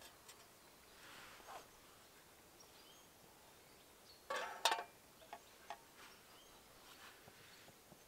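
Metal mess-kit pot and spoon clattering with a short metallic ring about halfway through, followed by two light clinks. Soft rustling of handling comes before and after.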